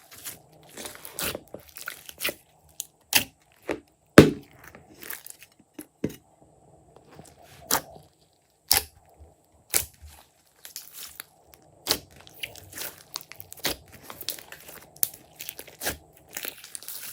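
Hands squeezing and stretching glossy slime, making irregular sticky clicks and pops. The loudest pop comes about four seconds in.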